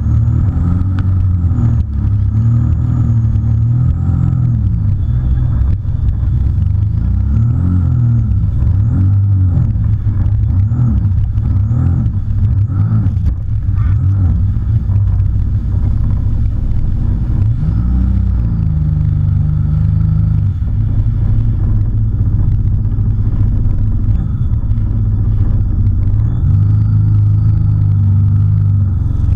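Personal watercraft engine running at speed, its pitch rising and falling repeatedly through the first half, then holding steadier, with water rushing and spraying around the hull.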